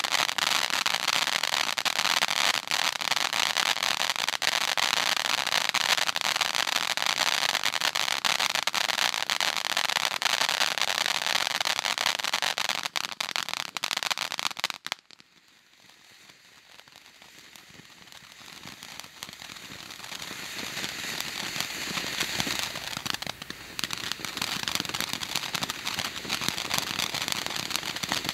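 Ground firework fountain hissing and crackling as it sprays sparks, dense with fine pops. About fifteen seconds in it cuts off suddenly. The next fountain starts quietly and builds steadily louder.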